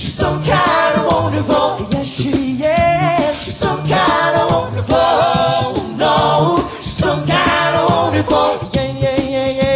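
A cappella vocal band singing a cover, several voices in harmony over a low bass part that pulses on the beat, with a chord held steady near the end.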